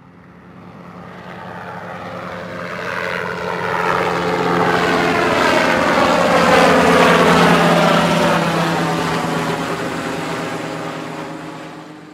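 A helicopter flying past. It swells up from silence, is loudest about halfway through, then fades away, its pitch falling as it passes.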